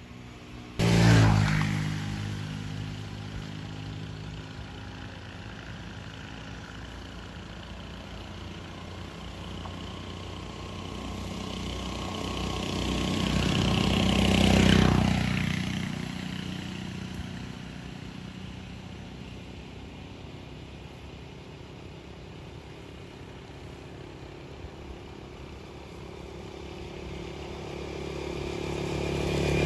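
Motor vehicles passing on the road: one goes by close and loud about a second in and fades away, a second builds up and passes around the middle, its pitch falling as it goes, and a third approaches near the end.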